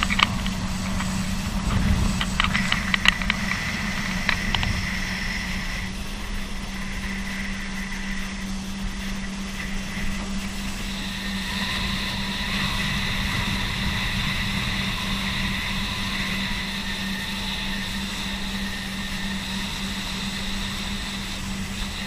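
Watercraft engine running steadily at speed over rumbling wind and rushing water, with a few sharp knocks early on. A higher whine comes in about halfway through and holds.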